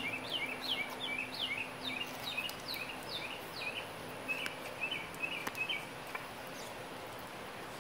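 A songbird singing a quick series of short downslurred whistled notes, about two or three a second, that stops about six seconds in, over steady outdoor background noise.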